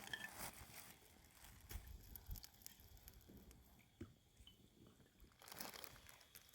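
Near silence with faint rustling and a few soft knocks, and a short louder rustle about five and a half seconds in.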